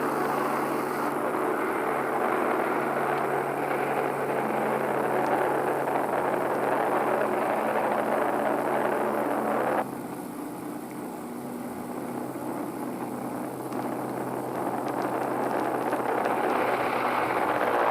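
A train running steadily, its engine giving a low hum under a wash of running noise. About ten seconds in the sound drops suddenly, as at a cut, then slowly grows louder again.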